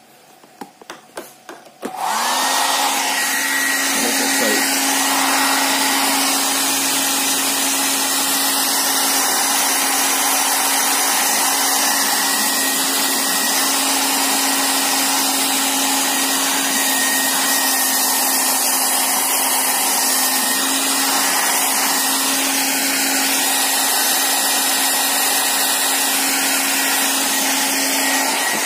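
Hand-held hair dryer switched on about two seconds in and running steadily: a rush of air with a constant hum and a thin whine. It is blowing hot air to dry moisture off a remote control's circuit board and rubber keypad, the moisture that was making the keys short.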